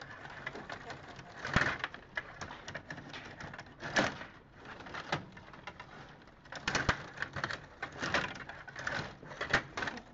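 Stiga Play Off table hockey game in play: irregular clacking and rattling of the control rods and plastic players against the puck and rink, with several louder clusters of knocks.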